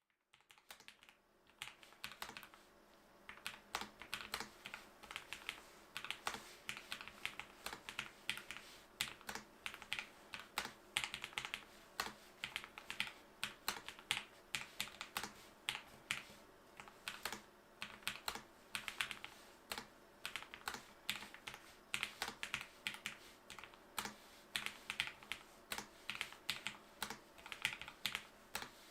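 Lofree Flow low-profile mechanical keyboard being typed on quickly and continuously: a rapid, uneven stream of soft key clicks that starts about a second in.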